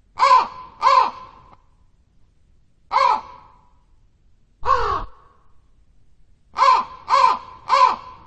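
Crow cawing: seven harsh, falling caws, a pair at the start, two single caws, then a quick run of three near the end.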